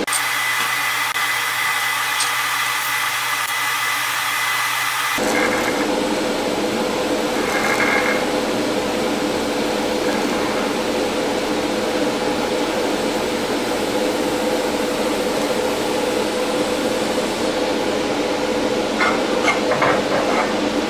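Pulsed TIG welding arc from a PrimeWeld TIG225X on a steel fillet joint: a steady hiss and hum with a fast, even pulsing as filler rod is laid into the puddle in spots. The sound turns fuller and lower about five seconds in, and a few sharp crackles come near the end.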